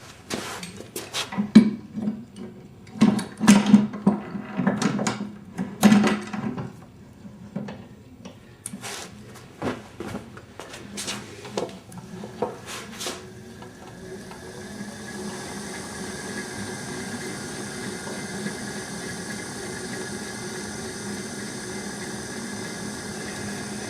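Clicks and metal clanks of hands and a wrench working the belt-tensioning nut on a Pacifica Glyde Torc 400 pottery wheel. About halfway through, the wheel's electric motor starts and runs with a steady hum, testing whether the new drive belts still slip after tightening.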